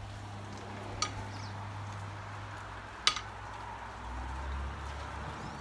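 Meat sizzling on a charcoal grill, with two sharp clicks of metal tongs knocking the grill, about a second in and about three seconds in, the second the louder.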